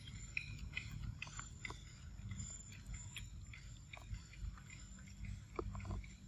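Macaque biting into and chewing soft, ripe fruit close to the microphone: irregular wet smacks and small clicks of mouth and teeth on the fruit's flesh and skin.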